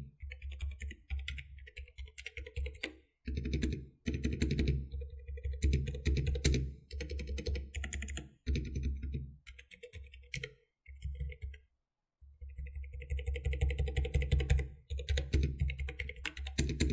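Typing on a Varmilo VPT87 keyboard with Kailh Prestige Silent linear switches: fast runs of soft keystrokes in bursts with short pauses. The spacebar is really loud against the otherwise quiet keys, which the reviewer puts down to poor stabilizers.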